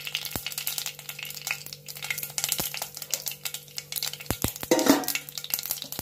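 Mustard seeds spluttering in hot oil in a nonstick pan: a dense, irregular run of sharp pops and crackles over a light sizzle, the sign that the tempering oil is hot and the seeds are spluttering well.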